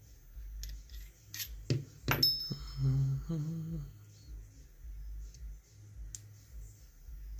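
Small metal clicks and scrapes of tools working on a dimple lock cylinder, a cluster of sharp clicks about two seconds in and a few lighter ticks later, as the cylinder is being taken apart.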